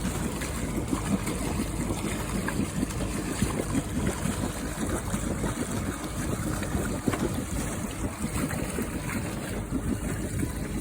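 Water lapping and splashing around a sailing boat, with no music or voices.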